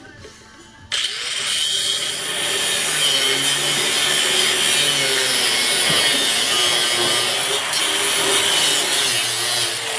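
Handheld electric angle grinder starting up about a second in and cutting into a steel buggy frame, a loud continuous grinding and hiss, its motor pitch wavering as the disc bites into the metal.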